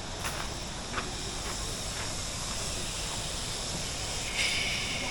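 Steady rushing of river water, with a few light footsteps; a brighter, higher hiss sets in about four seconds in.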